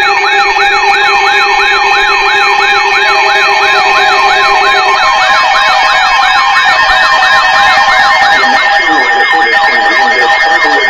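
Emergency alert attention tone announcing a severe thunderstorm warning: a loud siren-like tone sweeping up and down about three times a second, layered over steady alarm tones. A low steady tone drops out about halfway through, and another warbling layer joins near the end.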